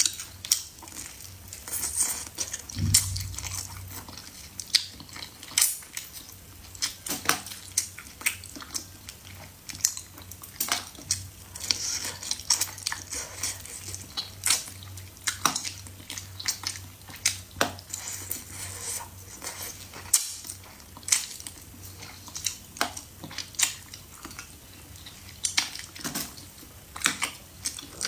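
Close-up eating sounds: utensils clinking against a dish, with chewing and biting. There are irregular sharp clicks and clatters, about one or two a second.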